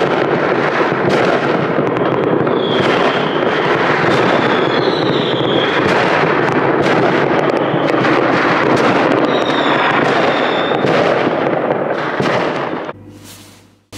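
Fireworks going off in a dense barrage: continuous crackling and bangs, with short whistles from rockets now and then. It breaks off about a second before the end.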